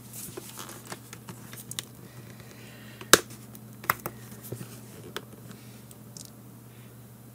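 Fingernails prying apart the plastic case halves of a Garmin Nuvi GPS: faint scraping along the seam and a few sharp clicks, the loudest about three seconds in.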